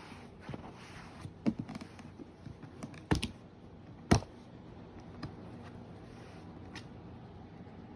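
Scattered clicks and knocks of hard objects being handled during an unboxing. The sharpest knocks come about a second and a half, three and four seconds in.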